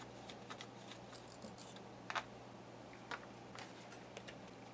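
Faint scattered clicks and light knocks from hands working the small plastic model airplane and its tiny engine, the sharpest about two and three seconds in, over a low steady hum.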